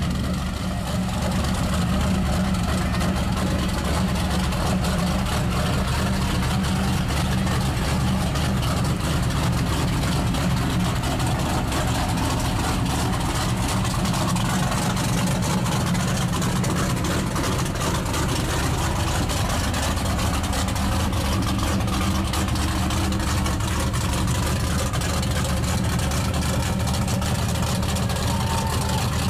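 The engine of a lifted mud-bog pickup on tractor tires, running steadily with a deep, even sound as the truck wades slowly through pond water.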